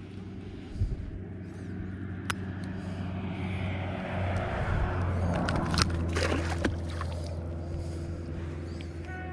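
A motor vehicle passing: a steady engine hum with a rushing sound that swells through the middle and fades away, with a few sharp clicks.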